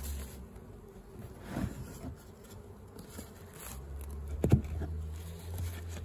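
Honeybees buzzing steadily around the open hive, with a softer knock about one and a half seconds in and a sharp knock about four and a half seconds in as the particleboard hive lids are set down.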